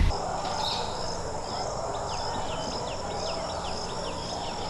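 Outdoor ambience: insects trilling steadily at a high pitch, with a bird giving a quick series of short falling chirps in the middle.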